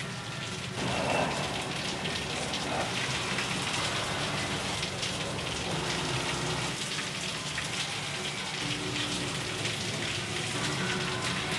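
Heavy rain pouring down in a steady hiss, getting louder about a second in.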